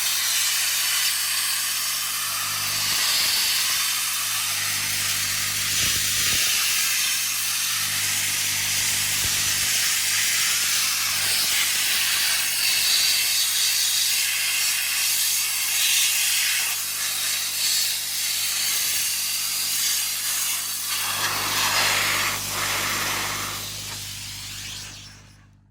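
Abrasive blasting with a mobile sandblaster: a steady loud hiss of air and media from the blast nozzle over the even hum of the compressor. The sound fades out near the end.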